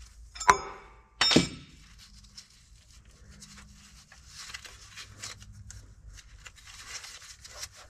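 Two sharp metal clanks with a ringing tail, about half a second and a second and a half in, as a steel tool strikes the front pump housing of a Borg Warner shuttle shift transmission while the pump is being worked out. After that come faint scrapes and light ticks of metal on metal.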